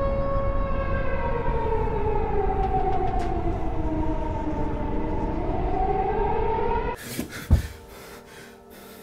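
Air-raid siren wailing over a low rumble, its pitch sliding down and then back up, until it cuts off suddenly near the end. A short rustle and a loud thump follow.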